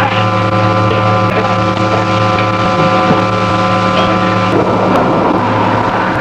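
Science-fiction sound effect for a mercury vapour explosion: a steady buzzing hum with many overtones over a rushing noise. About four and a half seconds in, the hum gives way to a louder, rough rushing sound.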